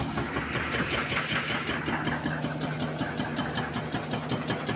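Hydraulic breaker on a CAT 320C excavator hammering concrete in rapid, even blows, over the steady running of the excavator's diesel engine.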